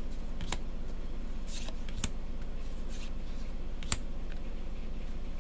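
Trading cards being handled: a few light clicks and a short rustle as Magic: The Gathering cards are flipped and moved, over a steady low electrical hum.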